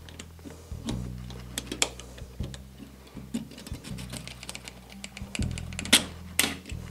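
Small steel parts and a tool clicking and tapping against a Mauser C96 pistol's bolt as its spring is pressed down and a small retaining block is worked back into place, with two sharp metallic clicks near the end. Background music with steady low notes plays underneath.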